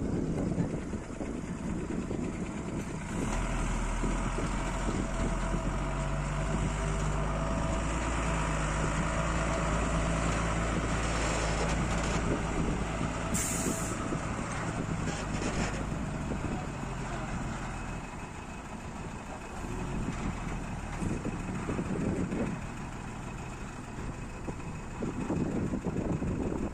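A lorry's diesel engine running close by with a steady low drone that sets in a few seconds in and fades out about two-thirds of the way through. About halfway there is a short, sharp air-brake hiss.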